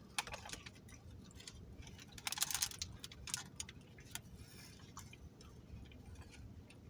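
Quiet eating sounds: faint scattered clicks, with a brief louder rustle about two and a half seconds in.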